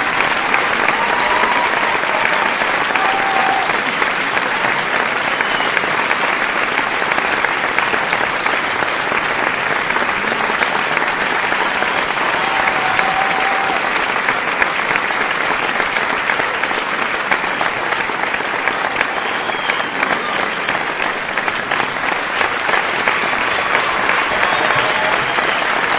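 Crowd applauding: many hands clapping densely and steadily without a break, with a few faint brief calls rising through it now and then.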